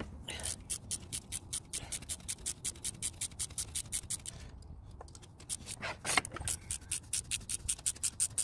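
Ratchet clicking at a steady pace, about six ticks a second, while a new glow plug is threaded into the diesel cylinder head. The clicking stops for about a second in the middle, then starts again.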